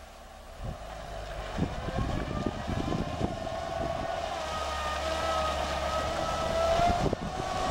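Lada Niva driven hard through a flooded reed bed, its engine at high revs with a wavering whine that climbs near the end over a steady low rumble. Mud and water splash from the spinning wheels, with scattered knocks.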